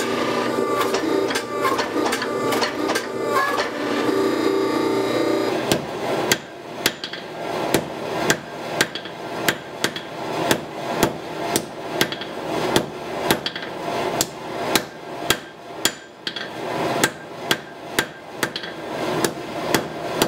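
A forge runs steadily for about the first six seconds. Then a hand hammer strikes a glowing steel bar on an anvil about twice a second, forging a knife blank made from ball-bearing steel toward its profile.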